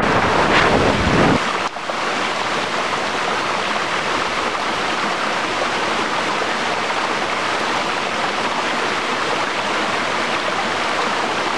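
Wind buffeting the microphone for about the first second and a half, then a sudden change to the steady rushing of water running down mountain-stream cascades.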